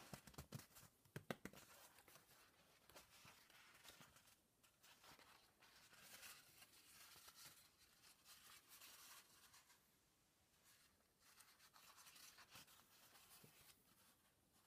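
Faint rustling and crinkling of a sheet of cork fabric as hands bend and flex it, with a few sharp clicks in the first second and a half.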